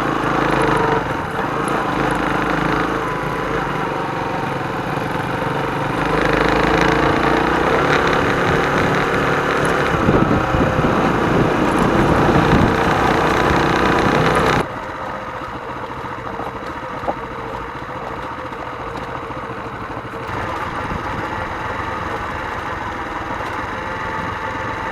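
Motorcycle engine running while riding, with the rumble of the ride around it. About fifteen seconds in the sound drops abruptly to a quieter, steadier engine hum.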